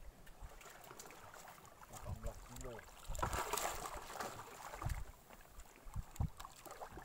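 Water splashing beside a boat's hull as a hooked giant trevally is pulled in at the surface with a pole, loudest about three seconds in, with a couple of dull knocks later on.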